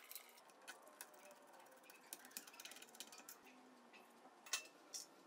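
Faint scattered clicks and taps of small steel screws and metal parts being handled and set into a plywood stepper-motor mount, with two sharper clicks near the end.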